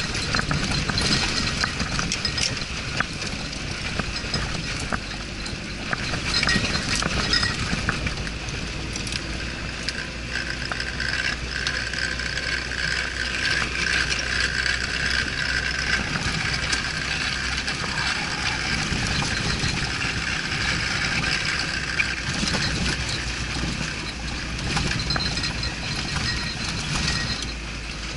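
Off-road vehicle driving over rough ground, heard from inside: the engine running under a steady low hum while the body and loose parts rattle and clink continuously, with a higher whine rising for several seconds around the middle.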